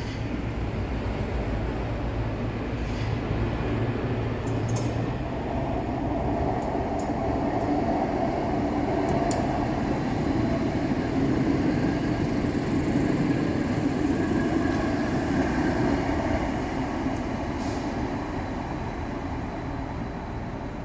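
Light-rail tram of the Aarhus Letbane passing at low speed, its running hum and wheel-on-rail noise growing louder to a peak about halfway through, then fading.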